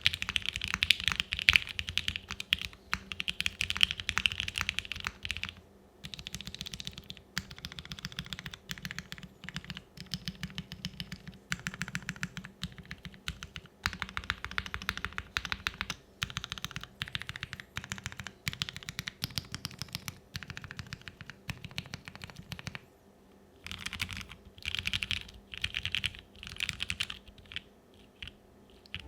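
Typing on a Unikorn R2.1 mechanical keyboard with lubed Gateron Ink Black V1 switches on a POM half plate with CRP keycaps: quick, clacky keystrokes. They come in one dense run for the first few seconds, then in shorter runs with brief pauses, and end with a few single presses.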